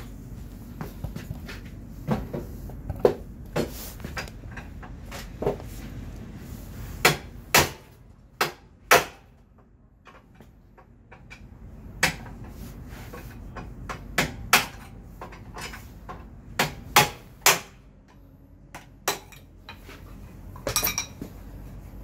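Irregular sharp knocks and clinks of hand tools and metal parts being handled while a motorcycle's front end and steering head are taken apart. They come at uneven intervals, with a short lull partway through.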